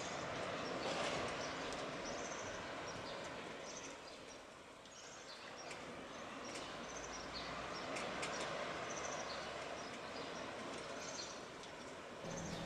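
Outdoor ambience: a steady rushing noise that swells, fades and swells again, with short high bird chirps repeating every second or two.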